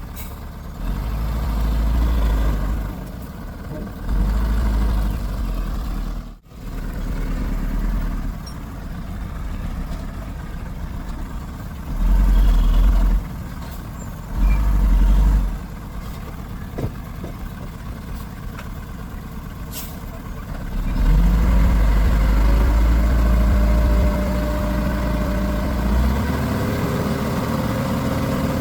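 Heavy diesel earthmoving machinery running: a bulldozer and dump truck engine rumble that swells under load several times. In the last third it runs loud for several seconds with the engine note rising and then holding.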